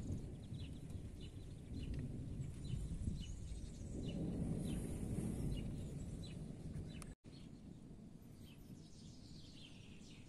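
Small birds chirping repeatedly, short high calls a couple of times a second, over a low rumble. The rumble drops away after a brief cut-out about seven seconds in, leaving the birds.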